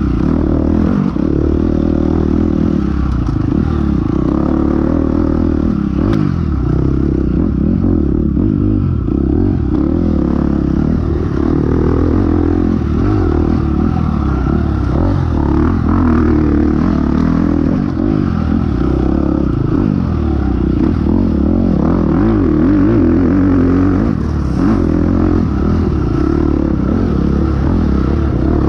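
Dirt bike engine running hard, revving up and down as the rider works the throttle.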